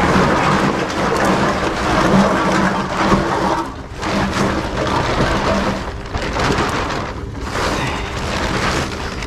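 Empty plastic bottles and cans rattling and clattering as bags full of them are tipped and shaken out into plastic crates, with the crinkle of the plastic bags. The clatter is continuous, with short lulls about four and seven seconds in.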